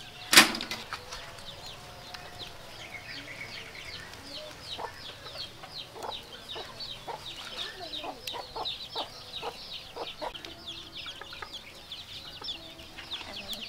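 Chickens clucking and peeping, with a steady run of short, high, falling chirps and some lower clucks. A single sharp knock comes about half a second in.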